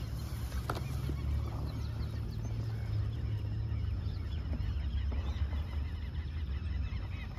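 Birds calling over and over in short chirping notes, thickest from about three and a half seconds in, over a steady low rumble.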